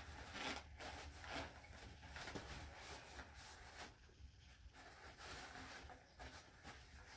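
Faint, irregular rustling and rubbing of paper towels as gloved hands wipe resin out of a resin 3D printer's vat.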